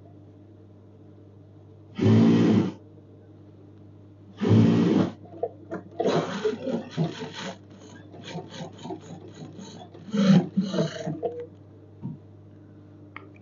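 Sewing machine stitching in three short runs of under a second each, then a few seconds of shorter, irregular bursts, over a steady low hum. This is the stitching of a jalabiya's collar band.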